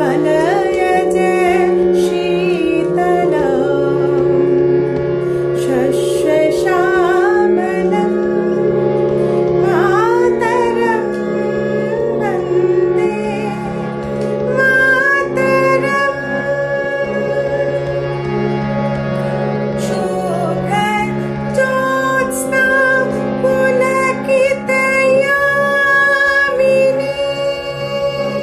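A woman singing a melody with long held notes over a sustained instrumental accompaniment whose low notes change every second or two.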